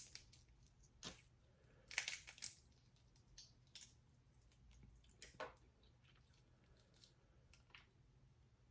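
Faint, scattered cracks and squishes of someone eating a crawfish and green mussel boil: shells being broken and peeled, and chewing.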